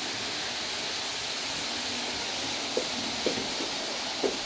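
Roco H0 model trains, an ICE Velaro and a Railjet, running at speed on the layout: a steady rolling whir of wheels on the rails and the locomotive motors, with a few faint short sounds in the second half.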